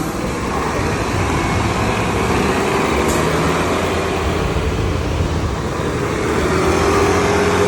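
Road traffic passing close by on a rain-wet street: engine drone with tyre hiss, swelling to its loudest about seven seconds in.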